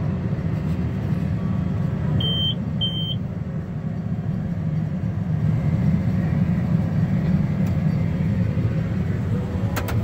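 John Deere 7730 tractor's six-cylinder diesel running steadily while pulling a round baler, a low drone heard from inside the cab. Two short electronic beeps sound about 2 and 3 seconds in.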